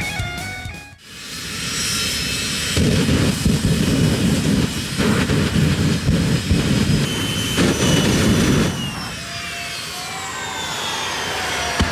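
Jet turbine engine on a show tank, whining up in pitch and then running with a loud, rough blast for about six seconds while it torches a wrecked car. It then throttles back, its whine falling away.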